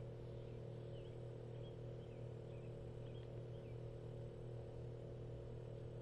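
Steady low mechanical hum with no change in level, and a few faint, short, high chirps scattered through roughly the first half.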